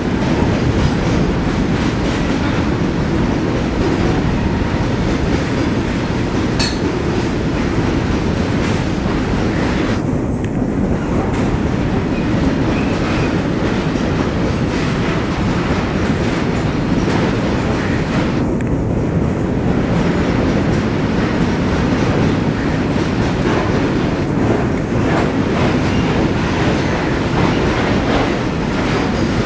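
Freight train of tank wagons rolling past, steel wheels running on the rails with a steady noise.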